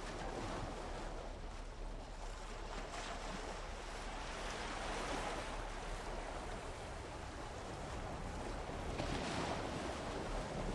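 Water rushing and splashing along the hull of a moving lake boat, mixed with wind on the microphone. The noise swells around the middle and again near the end.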